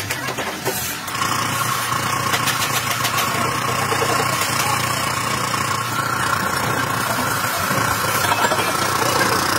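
An engine or motor running steadily, a low hum with a steady whine above it, after a few clicks in the first second.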